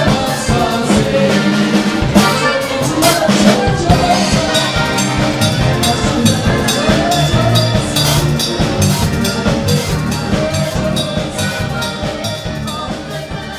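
Small live acoustic band playing: a woman singing over strummed acoustic guitars and accordion, with a steady beat. The music fades out near the end.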